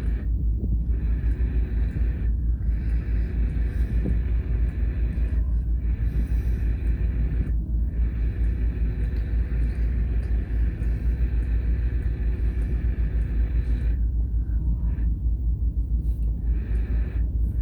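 Wind buffeting the microphone: a heavy, fluttering low rumble throughout, with a faint steady hum behind it.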